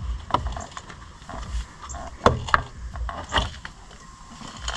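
A case saver being pushed and fitted by hand against an ATV engine case: a few scattered clicks and knocks of the part seating, the sharpest a little over two seconds in and again near three and a half seconds.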